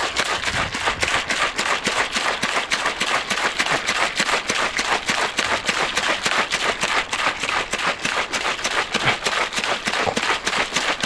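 Paint and water sloshing inside a closed garden pressure sprayer tank as it is shaken hard in a quick steady rhythm, mixing the thinned paint.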